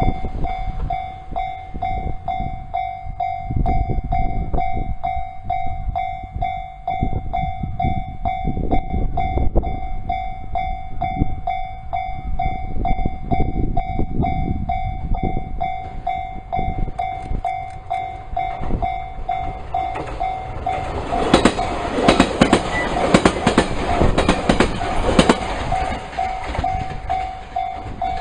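Electric commuter train approaching along the tracks and passing close by: a low rumble with clicks of wheels over the rail joints, loudest about three quarters of the way through as the cars go by. A steady high tone sounds throughout.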